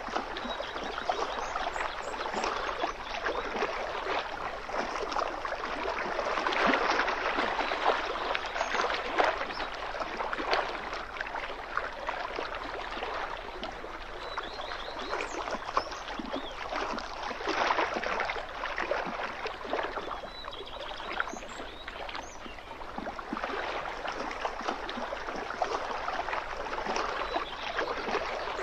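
Small waves lapping and splashing at a lakeshore: a continuous wash of water with many little splashes, swelling louder a few times.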